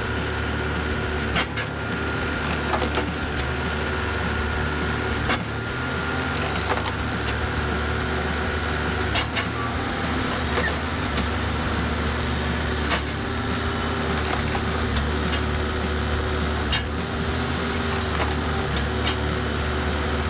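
Wood splitter running with a steady machine drone, with a sharp crack of splitting wood about every four seconds.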